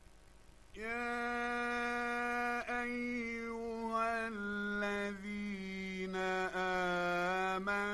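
After a moment of faint hiss, a male Quran reciter begins chanting about a second in, in a drawn-out melodic style. He holds long notes that step down in pitch, with a few short breaks between phrases.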